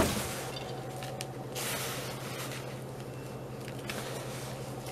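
Hands squeezing and rubbing cold butter into a flour, sugar and oat crumble mixture in a bowl: soft, gritty rustling and squishing, a little louder about a second and a half in.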